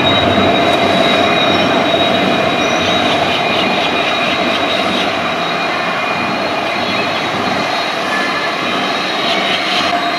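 EMD WDP 4 diesel locomotive with its 16-cylinder two-stroke engine idling at the tail of a moving passenger train, a steady engine run with a constant whine over the noise of the train rolling on the rails, slowly fading as it moves away.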